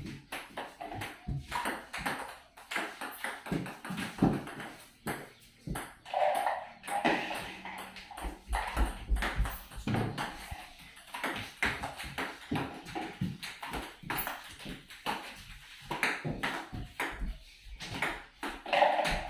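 Table tennis ball clicking as it bounces on the table and is struck back and forth with rubber paddles, in an uneven rhythm of short sharp taps.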